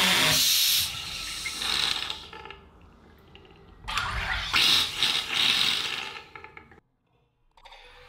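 Aarke Carbonator II soda maker forcing CO2 gas into a bottle of water: a loud hiss that stops about a second in and trails off into fizzing, then a second loud burst of gas about four seconds in that lasts nearly three seconds. After a short silence near the end, fainter fizzing of sparkling water being poured into a glass.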